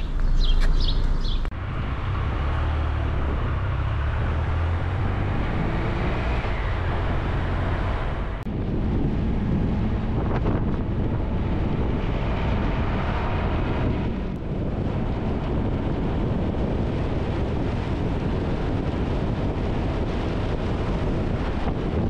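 Motorcycle riding along an open road: a steady engine rumble mixed with wind noise on the microphone. A few bird chirps are heard for the first second or so.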